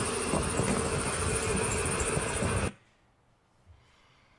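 Steady, loud road and traffic noise recorded from inside a car driving beside a tow truck. It cuts off suddenly about two and a half seconds in as the playback is paused, leaving faint room tone.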